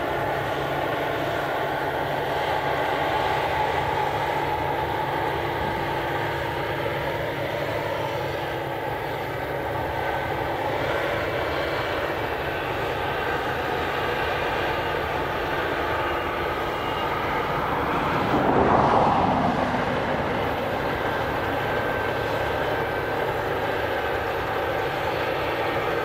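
Claas Lexion 430 Montana combine harvester running while it harvests wheat: a steady drone of engine and threshing machinery carrying several steady tones. About two-thirds of the way through, a brief louder swell of noise rises and fades.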